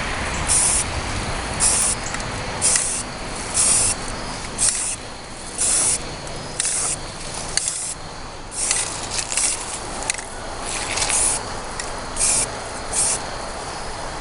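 Aerosol spray paint can spraying in short hissing bursts of about half a second, roughly one a second.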